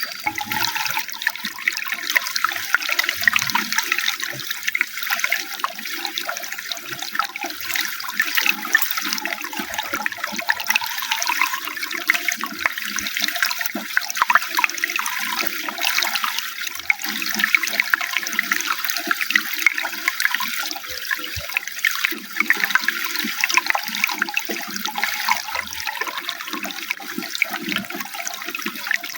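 Running water flowing steadily, with constant small splashes and no pauses.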